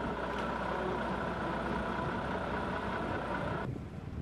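A heavy vehicle's engine idling steadily, with a low hum and a steady high whine. The sound cuts off suddenly near the end.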